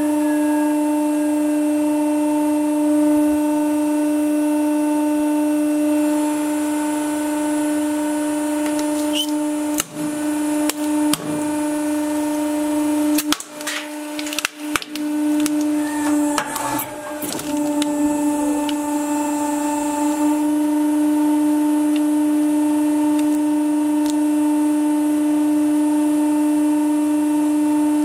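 Steady electric hum of a 100-ton hydraulic press's pump motor. From about 9 to 18 seconds in, a run of sharp cracks and knocks as the ram crushes a small plastic bottle of blue liquid into a gel-like mass.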